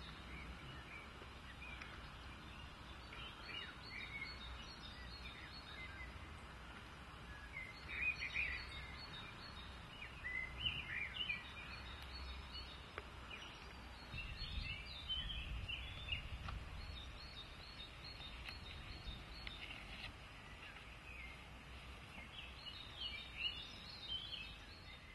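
Outdoor garden ambience: scattered bird chirps and calls over a faint low rumble that grows stronger for a few seconds around the middle.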